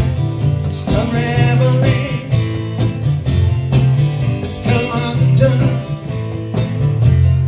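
Acoustic guitar strumming a country-style song, with a singing voice in places.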